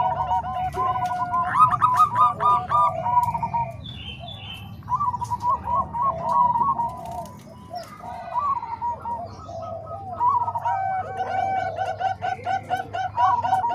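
Zebra doves (perkutut) cooing, several birds at once: their rapid strings of repeated coo notes overlap at different pitches, easing off in the middle and picking up again near the end.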